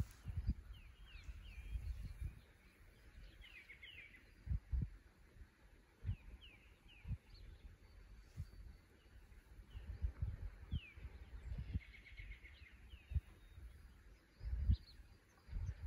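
Small birds chirping: short falling notes in quick little series, over irregular low bumps and rumbles on the microphone.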